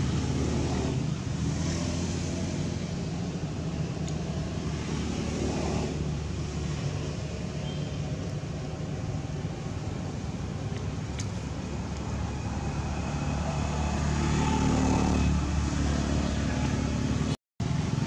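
Steady low engine hum of a motor vehicle running, swelling louder about three-quarters of the way through, then cutting out for a moment near the end.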